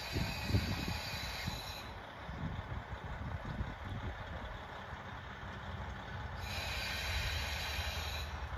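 KiHa 40 diesel railcar creeping into a station, its diesel engine and wheels giving a steady low rumble. Twice, for about two seconds each, a high hiss of air brakes sounds, once at the start and again near the end, as the train brakes to a stop.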